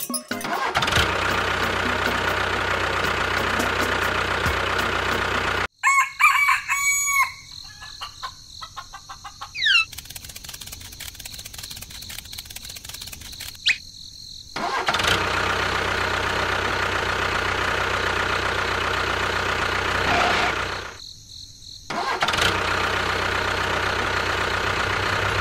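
A motor running steadily, which stops about six seconds in. A rooster crows in the gap that follows. The running sound picks up again around the middle and drops out briefly a few seconds before the end.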